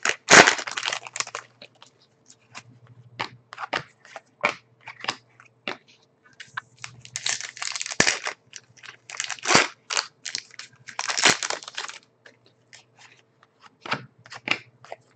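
Foil wrapper of a trading-card pack crinkling and tearing in bursts as it is opened, the loudest right at the start and again in the middle and about two thirds in. Between the bursts come short sharp clicks and slaps of the cards being handled and sorted.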